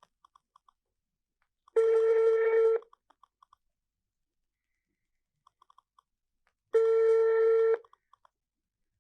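Telephone ringback tone: a steady tone about a second long, heard twice about five seconds apart, the signal that the dialled phone is ringing. Faint short blips sound between the tones.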